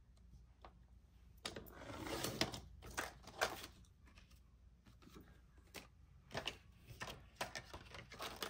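A sliding paper trimmer's cutter drawn along a laminated sheet, a rasping stroke about two seconds in, followed by scattered clicks and rustles of stiff laminated plastic being handled on the trimmer.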